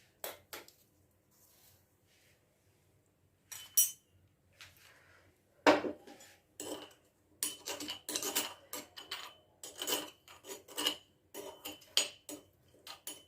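Pestle pounding ginger, cloves and black peppercorns in a mortar. A few scattered knocks and clinks come first, then from about halfway in steady strikes about two or three a second, each with a light ring.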